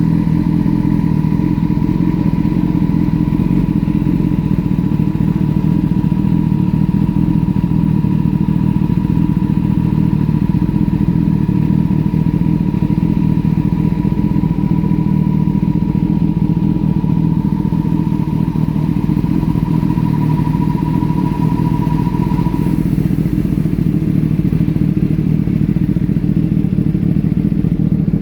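Kawasaki ZX-10R's inline-four engine idling steadily as it warms up. A faint steady whine sits above the engine note until it stops about 22 seconds in.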